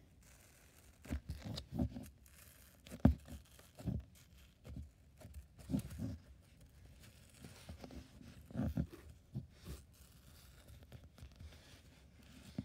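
Hands pressing and poking into foamy, bubbly slime: irregular soft squelches and crackles, about a dozen at uneven spacing.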